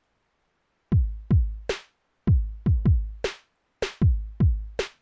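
Hip-hop drum-machine beat for a show intro: deep kick drums that drop in pitch, two or three at a time, each group answered by a sharp snare hit, starting about a second in and repeating roughly every one and a half seconds.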